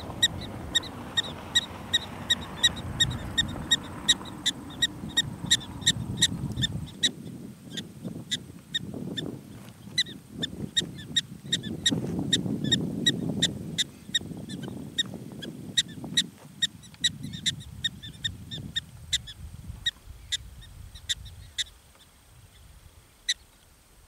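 Black-tailed prairie dog giving a long run of sharp, high alarm barks, about two to three a second, thinning out and stopping near the end. Under it is a low rumble that comes and goes.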